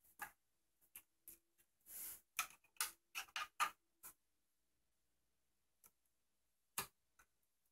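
Plastic snap clips of a Planar PX2210MW monitor's front bezel clicking as a small screwdriver pries along the seam, with soft rubs of handling: scattered clicks, a quick run of them about two to four seconds in, then a single click near the end.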